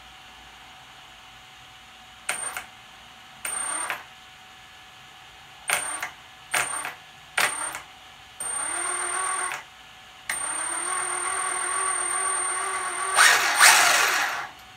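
Lehner 3060/6 brushless motor of an electric 1/5-scale car, run through an MGM 400A ESC, spinning the drivetrain in five short throttle blips, then two longer steady runs and a louder burst near the end, with a high electronic whine on each. With the ESC's minimal start power (P83) turned down to 3, it starts smoothly with no cogging and doesn't hit hard.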